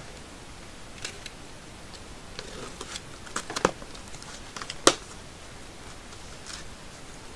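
Trading card box and packaging being handled and opened by hand: scattered clicks and light rustles, a quick run of snaps in the middle and one sharp snap about five seconds in.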